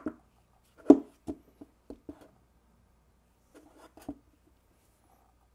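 Hard plastic rugged phone case and its kickstand clicking and tapping on a tabletop as the phone is propped up. There is a sharp click about a second in, a few lighter taps after it, then a soft rustle and one more click around four seconds in.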